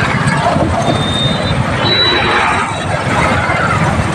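Motor traffic heard on the move: motorcycle and truck engines with road noise, and wind buffeting the microphone throughout.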